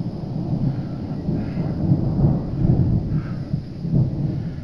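Thunder: a low rolling rumble that swells to its loudest about two seconds in, swells again near the end, then dies away.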